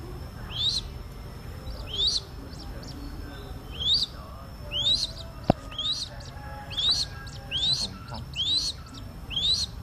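Crested goshawk nestling calling: thin, high upward-sweeping peeps, at first a second or two apart, then about two a second from halfway on. A single sharp click about five and a half seconds in.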